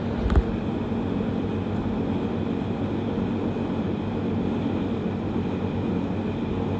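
Hoover tumble dryer running with a steady hum, with one sharp knock about a third of a second in.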